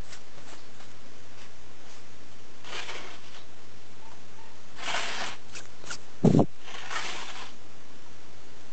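A cat lapping milk from a plastic bowl in a few short bouts, with one dull thump about six seconds in and a steady low hum underneath.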